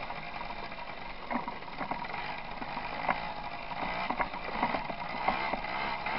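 Tomos moped's small two-stroke engine running as it rides over a rough, stony gravel track, with the bike rattling and knocking over the stones from about a second in.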